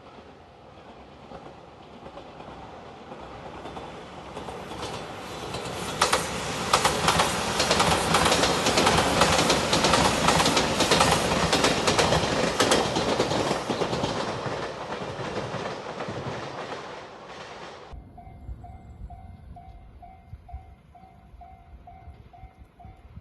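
Five-car electric Shiokaze limited express train passing at speed: it builds up, wheels clacking sharply over the rail joints and crossing at its loudest, then fades and cuts off abruptly about three-quarters of the way in. After that a level-crossing warning bell dings faintly, about twice a second.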